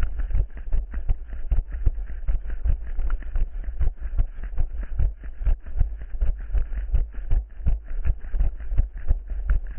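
Running footsteps: a steady rhythm of footfalls over a constant low rumble.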